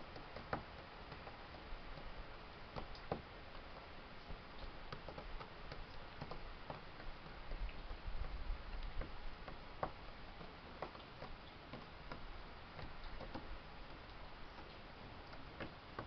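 Great tit pecking at seeds on deck boards: faint, irregular sharp taps of its beak against the wood, coming in scattered runs.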